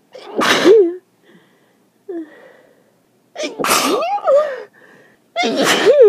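A person sneezing three times in an allergic sneezing fit: wet, voiced sneezes right at the start, about three and a half seconds in, and at the very end, with a brief breath between them. The sneezing comes from pollen allergy, with the nose itching.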